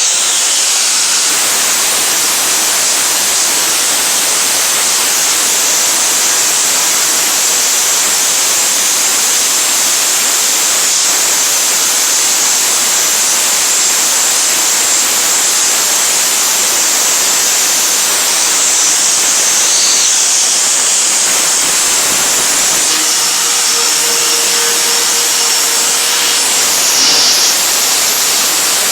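Power grinder running steadily, grinding rust off a steel truck bed.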